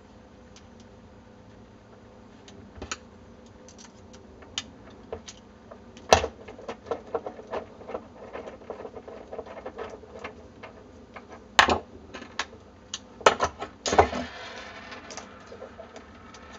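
Clicks and clacks of hand-handling a stack of laser-cut acrylic extruder plates while a bolt is unscrewed, pliers gripping its nut. The sound is a scatter of small ticks with a few sharper, louder clacks in the second half.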